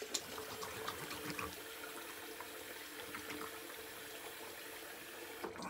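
Bathroom sink tap running steadily while cupped hands splash water onto the face to rinse off shaving lather; the running water stops just at the end.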